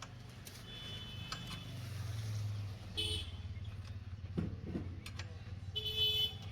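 An engine running steadily, with short vehicle horn toots about a second in, around three seconds and near the end, the last the loudest.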